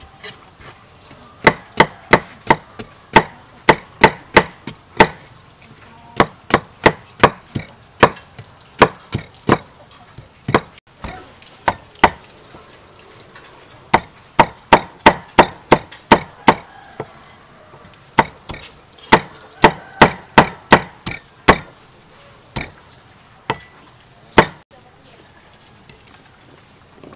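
Cleaver chopping a fresh root on a thick wooden chopping board: sharp knocks in quick runs of several strikes with short pauses between runs, stopping near the end.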